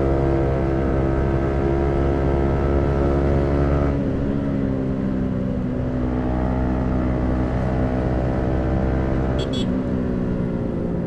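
Yamaha MT-15's single-cylinder engine running through an aftermarket Akrapovic exhaust while riding. The note holds fairly steady, dips about four seconds in, climbs slowly and falls again near the end as the throttle changes.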